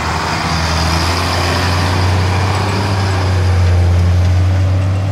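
Fire truck's diesel engine running as the truck drives past on a gravel road and pulls away, a steady low drone under tyre noise that is loudest a little before four seconds in.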